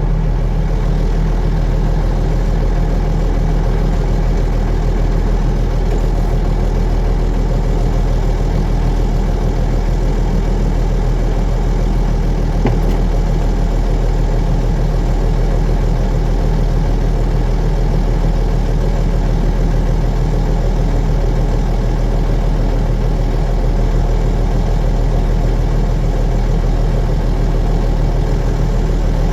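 Tractor's diesel engine running at a steady speed, a constant low hum with no change in pitch or load.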